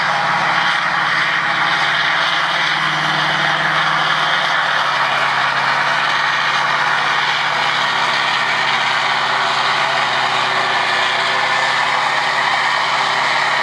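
Massey Ferguson tractor's diesel engine running hard under full load while pulling a weight-transfer sled. The engine note sags a little about four and a half seconds in.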